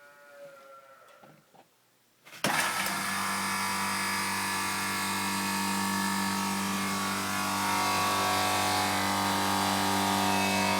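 Bristol hermetic refrigeration compressor and condenser fans of a condensing unit starting suddenly about two seconds in and then running steadily with a strong low hum. It is a cold start through a newly fitted start relay and start capacitor, and the compressor catches and keeps running.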